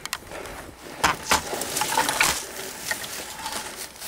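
Rustling in dry leaf litter and bamboo grass with scattered sharp clicks and knocks, from the camera being picked up and moved.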